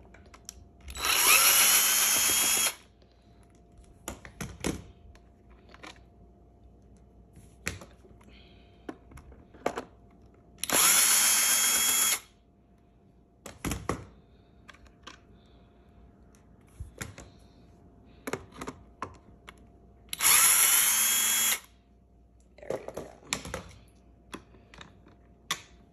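Cordless electric drill-driver backing out three screws from a vacuum's filter cover. It runs in three bursts of about a second and a half each, roughly ten seconds apart, each a motor whine. Small clicks and knocks of handling come between the bursts.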